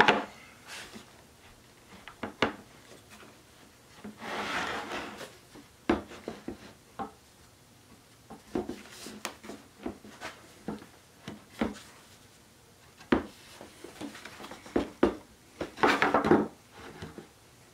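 Wood panels being worked together by hand over loose tenons: scattered short wooden knocks and clicks, with two longer scraping rubs, one about four seconds in and one near the end.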